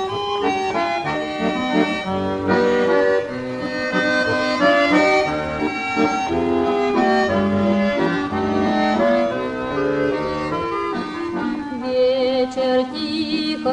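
Two button accordions play the instrumental introduction of a Russian folk-style song, melody over chords. Near the end, women's choir voices enter with vibrato as the first verse begins.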